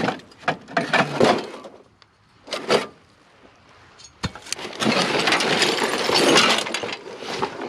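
Scrap metal being handled in a junk pile: a few sharp clanks, then a longer stretch of continuous clattering and scraping as pieces are dragged and shifted.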